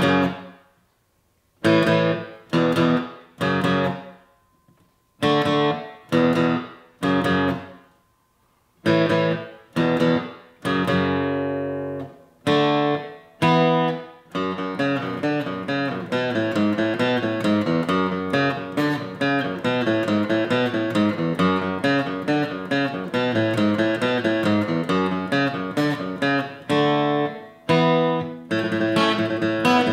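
Solo steel-string acoustic guitar: single strummed chords, each left to ring and die away with short silences between, then from about fourteen seconds in continuous playing in a quick, even rhythm.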